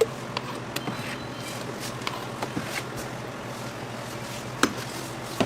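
Street-stall cooking noise: scattered sharp clicks and clinks over a steady hiss and low hum, with a louder knock about four and a half seconds in.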